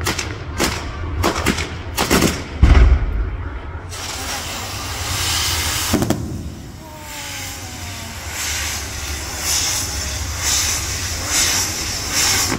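Fireworks on a castillo, a pyrotechnic tower: a quick string of sharp bangs with one heavy boom near three seconds in, then steady hissing from burning fountains and spinning sparks, with one loud bang about six seconds in.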